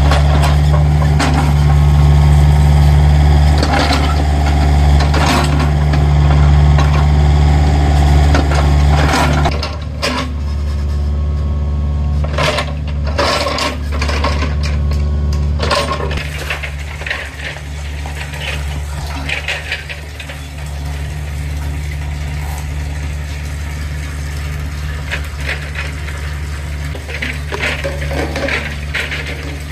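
An engine running steadily with a deep hum, over repeated metallic clanks and scrapes. The engine is loudest for the first ten seconds or so, then eases to a lower level.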